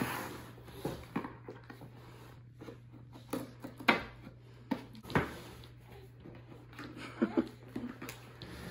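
Cardboard box being opened and handled: scattered sharp knocks and scrapes with rustling of cardboard, the loudest knocks about four and five seconds in.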